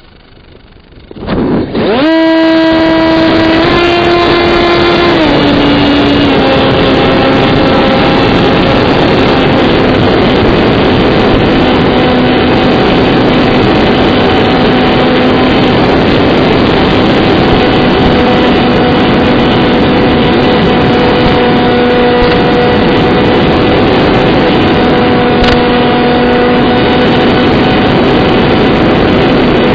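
Electric motor and propeller of an AR Wing RC flying wing spinning up about a second and a half in, then running with a steady buzzing tone that steps down a little over the next few seconds and then holds. Heavy wind noise on the microphone runs under it.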